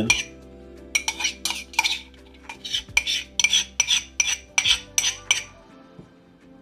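A spoon scraping against a bowl in about a dozen quick strokes, scooping and spreading thick protein cream, stopping about five seconds in.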